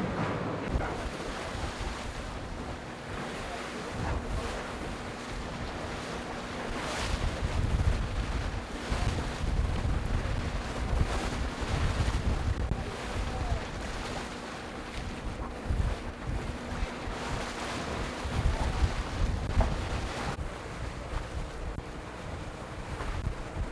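Wind and rushing water aboard an IMOCA racing yacht under sail, with wind buffeting the microphone. The noise surges and eases unevenly, over a faint steady hum.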